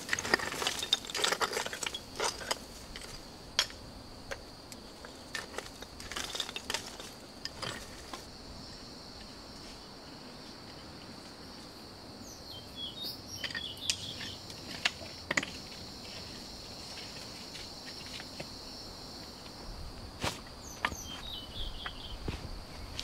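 Hatchet striking and scraping rocky soil, a run of sharp knocks through the first several seconds. Then a steady insect buzz with a few short bird chirps, and footsteps on dry leaves near the end.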